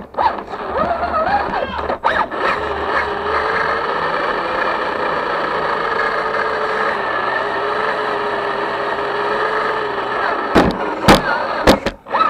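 RC rock crawler's electric motor and gearbox whining steadily while it drives, the pitch wavering a little. Several sharp knocks come near the end.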